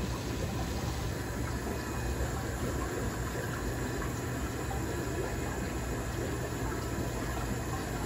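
Steady running-water noise from the aquarium's filtration, with a low hum underneath.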